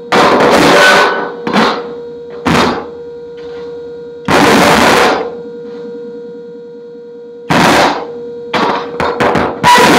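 An electronic noise jam on keyboards and amplifiers: a steady electronic hum tone runs under irregular, very loud bursts of distorted noise. Some bursts are short and some last about a second, with a quick cluster near the end.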